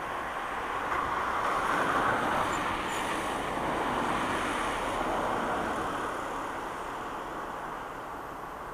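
Distant vehicle noise: a steady rushing sound that swells to a peak about two seconds in, then slowly fades.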